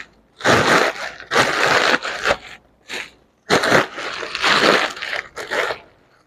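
Bag rustling and crinkling as it is handled, in about half a dozen short bursts with brief pauses between them.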